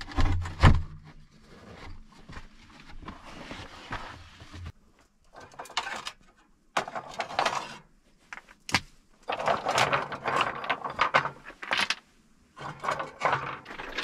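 Stones clattering and knocking against one another and against a small metal sauna stove as they are picked up and moved by hand, in irregular bursts, busiest about two thirds of the way through.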